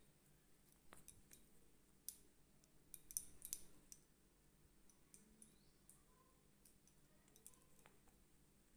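Near silence with faint scattered clicks and ticks, and a quick cluster of them about three seconds in, from a kitten pouncing on and batting a string toy on a carpet.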